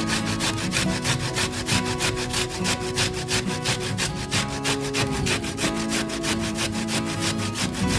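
Onion being rubbed on a hand grater: quick, even rasping strokes, about five a second, over background music.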